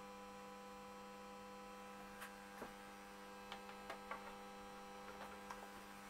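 Faint, steady electrical mains hum from the audio equipment, with a few faint, scattered clicks in the second half.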